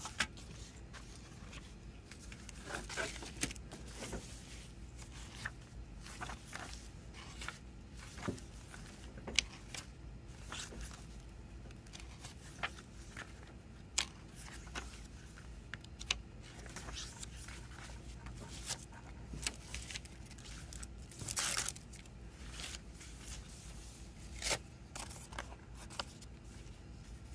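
Hands handling a CD: sharp clicks and clacks from the plastic jewel case and rustling as the paper booklet's pages are turned, with a longer rustle about three-quarters of the way through.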